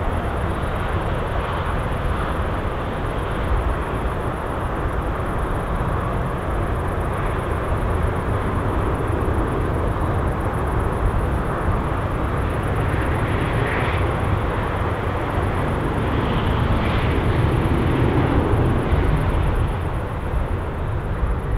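Airbus A340-300's four CFM56-5 turbofan engines, a steady deep jet rumble that swells a little in the second half as the airliner takes off and climbs away.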